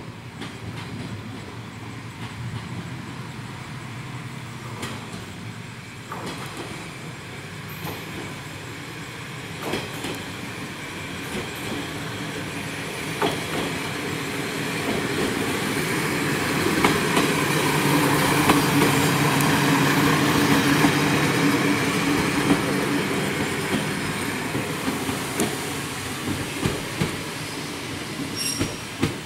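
KiHa 32 single-car diesel railcar moving slowly through station tracks. Its engine drone builds to its loudest about two-thirds of the way in as it passes, then fades as it moves off, with wheel clicks over rail joints and points along the way.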